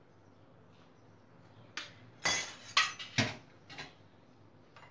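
A metal ladle and spoon clinking against a ceramic plate: a quiet start, then about five or six sharp knocks in quick succession from about two seconds in, as the poached egg is eased off the ladle onto the plate.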